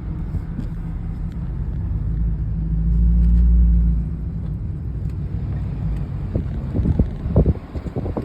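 A 6.7-litre diesel truck engine running with a low, steady note that swells louder for a couple of seconds in the middle. Near the end there are irregular, uneven bursts of louder noise. The running engine is making a noise called funny, though which part of the sound is meant is not shown.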